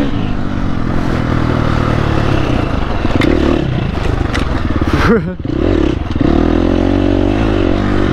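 Dirt bike engine running under throttle while riding over a loose gravel trail, with sharp clatters from stones now and then. About five seconds in the engine sound dips briefly, then picks up again.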